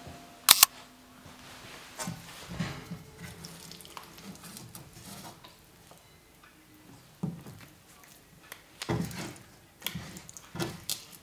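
Cooked noodles being lifted from a pan into a ceramic bowl: clinks and clatter of a utensil against the pan and bowl, with soft wet shuffling of the noodles. Two sharp clicks about half a second in are the loudest sounds.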